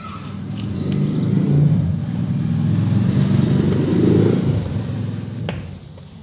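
A motor vehicle engine passing by, growing louder over the first second or two, holding, then fading away by about five seconds in. A single sharp click near the end.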